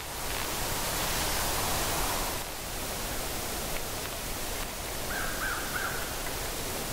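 Steady hiss of outdoor woodland ambience, with a bird giving three short calls in quick succession about five seconds in.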